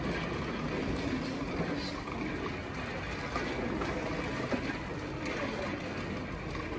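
Steady indoor supermarket noise, with a wire shopping trolley rolling over a tiled floor as it is pushed along.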